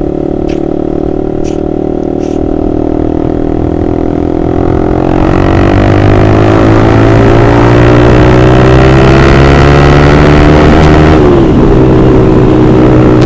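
Honda CBR150R's single-cylinder four-stroke engine running through an Austin Racing aftermarket racing exhaust on the move. It holds steady for about five seconds, then gets louder as it accelerates with the pitch slowly climbing, with a brief dip in pitch late on before it pulls on.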